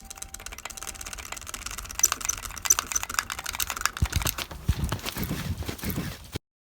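Hurried footsteps: rapid, irregular clicks and rustles, with a few heavier low thumps in the second half, cutting out abruptly near the end.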